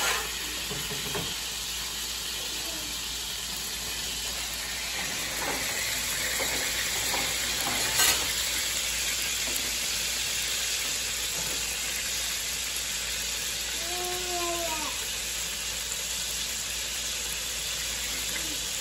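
Bison burger patties sizzling steadily in hot fat in a skillet, with one sharp clack about eight seconds in.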